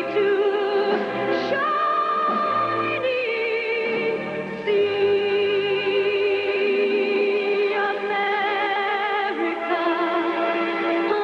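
A woman singing a slow song in a trained voice, holding long notes with vibrato over instrumental accompaniment.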